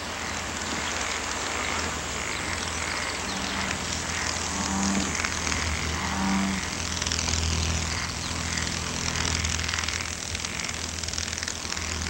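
Dragonfly wings whirring as it hovers: a steady, low, propeller-like buzzing drone, with faint higher notes repeating over it.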